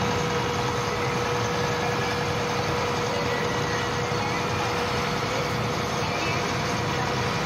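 A ferry launch's engine running steadily while the boat is underway, with rushing water and wind noise, and a steady hum that fades out about halfway through.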